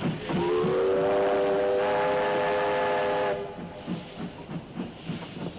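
Steam locomotive whistle blowing a chord of several tones for about three seconds, sliding up in pitch as it opens and then held steady before cutting off, over the locomotive's steady exhaust chuff of about three to four beats a second that continues after the whistle stops.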